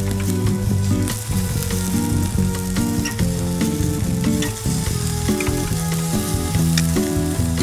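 Striped bass fillets sizzling on a wire grill rack over a gas flame, with a few sharp clicks and scrapes from a spatula turning the pieces. Under the sizzle runs a low tune of notes changing every fraction of a second.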